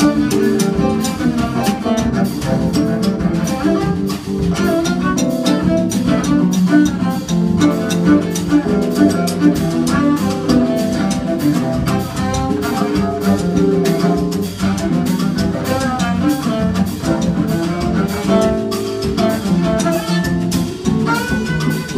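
Live instrumental samba played by a trio of cello, nylon-string acoustic guitar and drum kit, with sustained cello lines over guitar chords and a steady, busy drum and cymbal rhythm.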